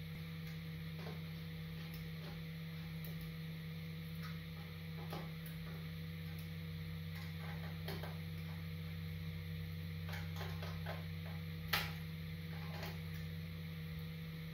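Scattered light clicks and metal taps from hand tools working the exhaust header nuts, with one sharper click near the end. A steady low hum runs underneath.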